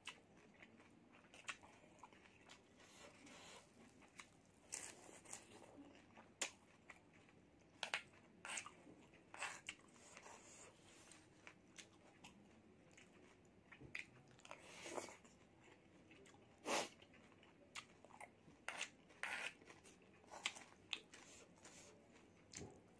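Close-miked eating of spicy instant noodle soup: scattered bouts of chewing and slurping mouthfuls, with short sharp clicks of a wooden spoon against the stone mortar, separated by quiet gaps.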